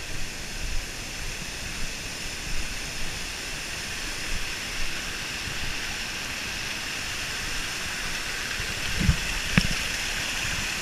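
Rushing water from a waterfall and a stream cascading over rocks: a steady hiss that grows a little louder near the end. Two short knocks come about nine seconds in.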